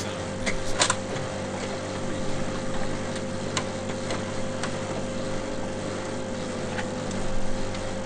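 Photocopier running through a copy cycle: a steady mechanical hum and whir with a steady tone, scattered clicks and a clatter about a second in, rising again near the end before it stops abruptly.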